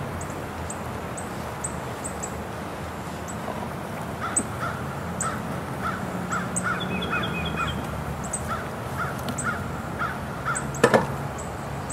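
Birds calling over and over, short calls at about two or three a second from about four seconds in, with a brief run of higher notes around seven seconds. Near the end comes a single sharp knock, the loudest sound, as hive equipment is handled.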